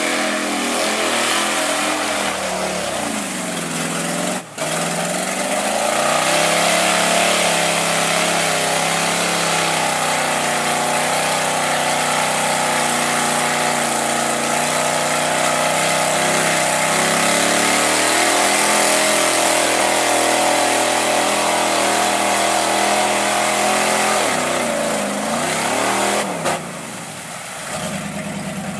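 Lifted mud-bog pickup on tractor tires running at full throttle through deep mud, its engine revving high and steady for long stretches. Near the end the revs fall and the engine runs lower and quieter as the truck slows in the mud.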